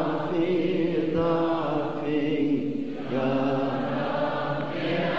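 Arabic Christian hymn sung as a slow chant, the voices holding long, drawn-out notes that glide from pitch to pitch.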